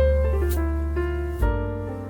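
Background music on a keyboard: a slow melody of held notes over a sustained bass, with a new chord struck about one and a half seconds in.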